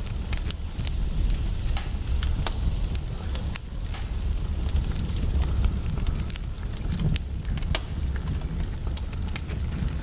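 Fireplace crackling: irregular sharp pops and snaps scattered throughout, over a steady low rumble.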